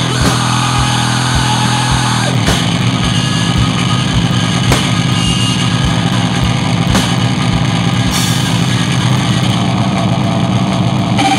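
Harsh noisecore recording: a dense wall of distorted noise over a low thumping pulse about twice a second. About two seconds in it turns thicker and less regular, and it changes abruptly to a new, steadier texture at the very end.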